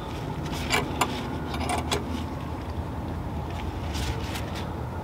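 Hand tools working a puller on a 4L60E transmission's front oil pump as the pump starts to shift: a few sharp metal clicks about a second in, a quick run of ratchet-like clicks just after, and a couple more near the end, over a steady low hum.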